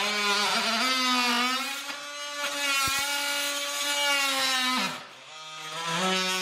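Cordless DeWalt oscillating multi-tool with a plunge-cut blade scoring shallow cuts along the seams of white fir tongue-and-groove boards, not cutting all the way through. It gives a steady motor whine that wavers in pitch as the blade bites. About five seconds in it drops away briefly, then comes back up to speed.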